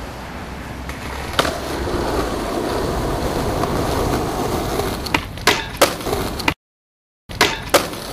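Skateboard wheels rolling on concrete, the rumble building as the board approaches, then a quick run of three sharp clacks as the board is popped and comes down. After an abrupt cut to silence, two more sharp clacks follow.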